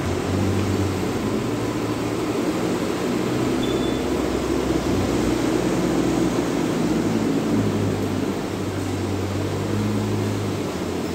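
Truck engine running at low speed: a steady low hum whose pitch drifts slightly up and down.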